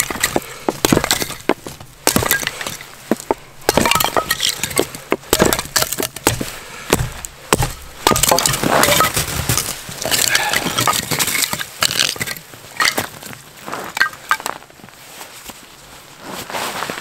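Small axe splitting wood into kindling on a chopping log: a long run of sharp, irregular knocks as the blade strikes, mixed with cracking as sticks split off.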